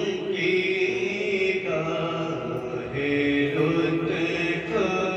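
A solo male voice chanting the opening of a naat in long, drawn-out held notes that step from pitch to pitch.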